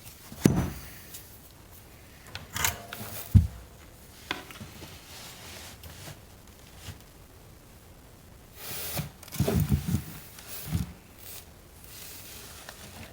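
Handling noises from soldering work on a wire splice: scattered rustles, light clicks and a sharp knock a few seconds in, with a busier stretch of rubbing and tapping in the second half.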